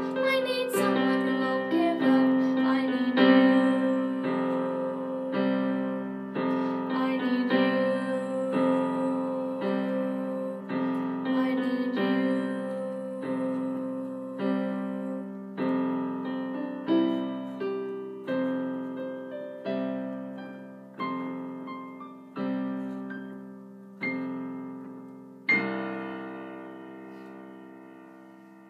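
Piano keyboard playing a slow ending of a ballad: chords struck and left to decay, about one a second and growing further apart, until a last chord about 25 seconds in rings out and fades away.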